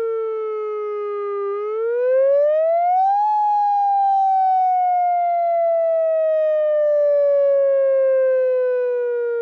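Outdoor warning siren sounding a wail: a single loud tone that sinks slowly, rises quickly about two seconds in, then sinks slowly again.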